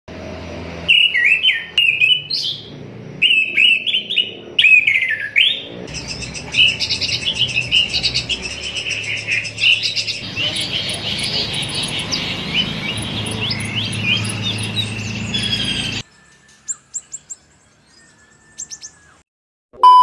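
Caged songbirds singing in turn: loud whistled phrases with quick rising and falling notes, one bird giving way to another at abrupt cuts. After the last cut the singing turns to faint scattered chirps, and a short, loud electronic beep sounds at the very end.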